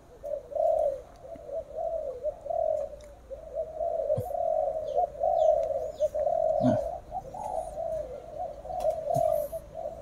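Many caged spotted doves cooing at once, their calls overlapping into a continuous chorus, with a few faint high chirps over it.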